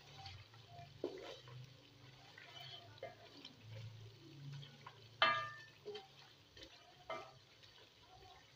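Chicken pieces bubbling in hot oil in a coated pot while a wooden spatula stirs them, scraping and knocking against the pot several times. The loudest knock, about five seconds in, rings briefly.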